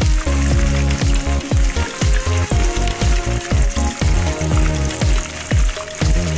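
Cornstarch-coated chicken pieces frying in hot oil with a steady sizzle, under background music with a deep repeating bass beat.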